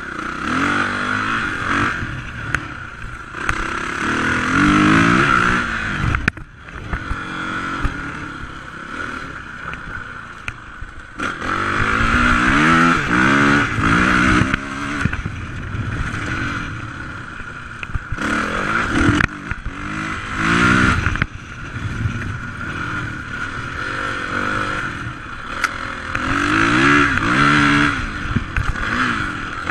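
Suzuki RMX450Z single-cylinder four-stroke dirt bike engine under hard acceleration, its pitch climbing and dropping back again and again as the rider works through the gears. Scattered clatter from the bike over rough ground.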